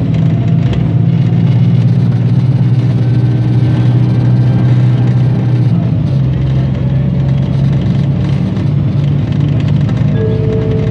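Bus engine idling steadily: an even low hum with slight rises and falls in pitch.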